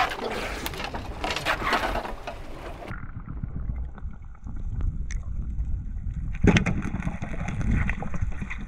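Water splashing and sloshing at the surface beside a boat. About three seconds in, this gives way to muffled underwater sound heard through a diving camera's housing: a low rumble with scattered crackling clicks, which grows louder about two-thirds of the way through.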